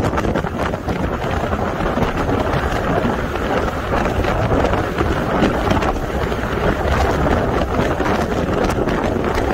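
Steady wind rush over the microphone of a moving motorcycle, with engine and road noise underneath.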